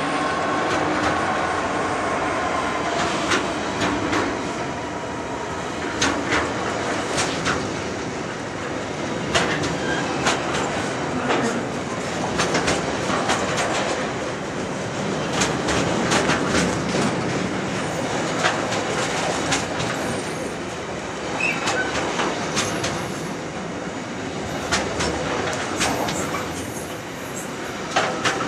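Container flat wagons of an intermodal freight train rolling past close by: a steady rumble of wheels on rail with irregular sharp clicks and knocks as the wheels cross rail joints.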